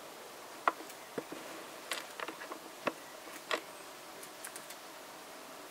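A scattered, irregular series of faint sharp clicks and taps, mostly in the first few seconds, over a faint steady hum.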